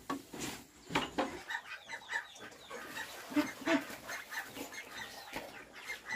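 Chickens clucking: a string of short calls, with a sharp knock about a second in and another near the end.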